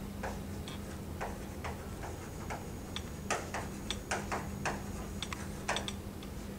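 Chalk writing on a blackboard: an irregular string of short taps and scratches as words are written.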